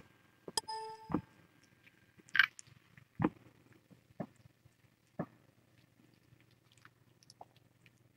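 Kittens crunching dry kibble from a bowl: scattered soft crunches and clicks, with a short ringing clink about half a second in.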